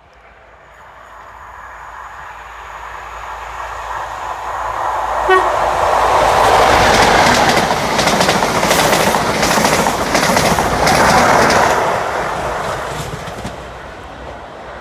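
A train passing through: its noise builds over several seconds, peaks with a rapid clatter of wheels over rail joints, then fades away. A short horn note sounds about five seconds in.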